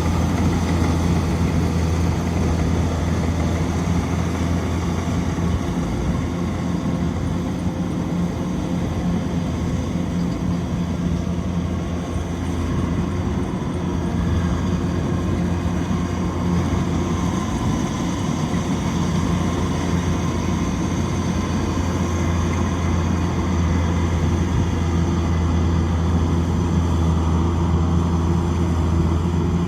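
Kubota DC-105X rice combine harvester's diesel engine running steadily with a deep, even hum, easing slightly for a few seconds partway through.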